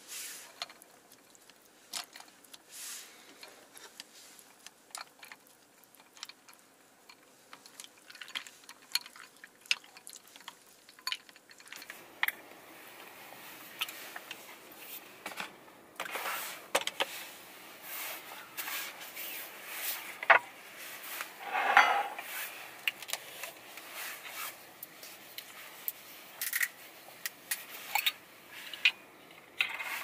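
Chopsticks clicking and ice cubes clinking against a ceramic bowl as cold raw-fish soup (mulhoe) is stirred, heard as a run of small irregular clicks. The clicking grows busier and noisier about halfway through, with a louder burst a little later.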